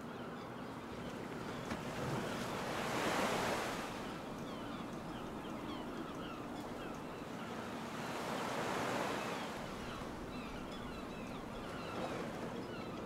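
Sea waves washing in, swelling twice, about three seconds in and again near nine seconds, over a steady wash of wind.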